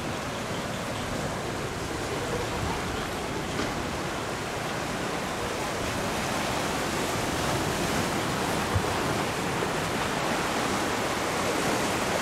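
Atlantic surf washing and breaking over shoreline rocks: a steady rush of waves that grows a little louder toward the end.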